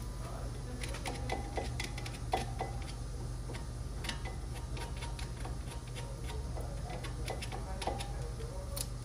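Irregular light metallic clicks and clinks of hand tools and brake parts being handled, some with a short ring, over a steady low hum.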